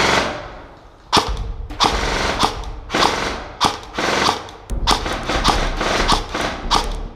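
Airsoft rifles firing a string of sharp single shots, roughly two a second and unevenly spaced, each with a short echo. A loud rushing noise fades out over the first second.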